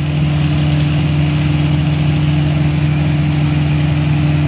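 An engine idling, a constant steady hum with no change in speed.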